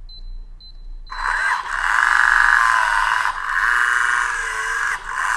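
Motorised Schlage keyless deadbolt whirring as its motor drives the bolt in three runs, about two, two and one second long, while the lock learns its door handing after the first default PIN is entered. A few short high keypad beeps come just before the motor starts, about a second in.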